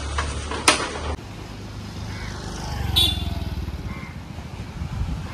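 A sharp click about a second in, then a motor scooter's small engine running as it passes close by on the road and moves away, loudest about three seconds in, with a van's engine approaching.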